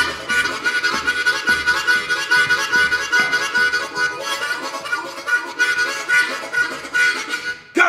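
Harmonica played solo in a rhythmic, pulsing run of chords with a repeated high note, stopping abruptly shortly before the end.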